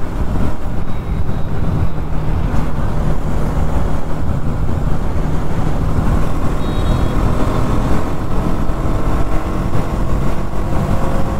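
Wind rushing over the helmet-mounted microphone while riding a Bajaj Pulsar NS200 motorcycle, with the running note of its single-cylinder engine coming through more plainly in the second half.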